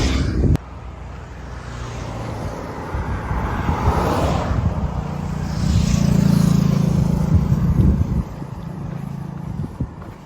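Road traffic passing close by: the hiss of one vehicle swells about four seconds in, then a louder low engine hum passes from about six to eight seconds and fades.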